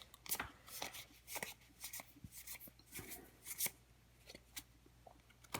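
Magic: The Gathering trading cards being flipped and slid past one another in the hands, a string of faint short card flicks and rubs that thin out after about four seconds.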